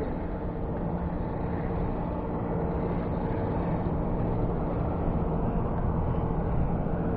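Boat engine running steadily at an unchanging speed.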